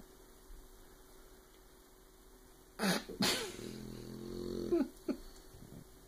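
Sleeping boxer puppy snoring: two sharp snorts about three seconds in, then a long pitched snore that swells in loudness, ending in two short snorts.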